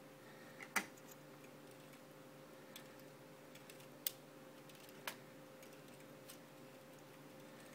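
A few sharp plastic clicks and taps as a Lego Technic chassis is handled and its wheels and steering worked by hand, three of them louder than the rest, over a faint steady hum.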